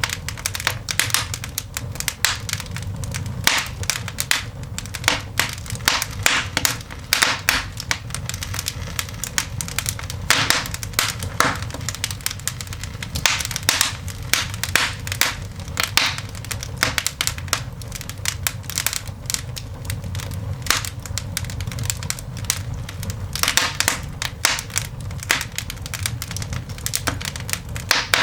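Coal fire in a cast iron dog grate crackling and popping, with irregular sharp snaps coming several times a second over a steady low rumble.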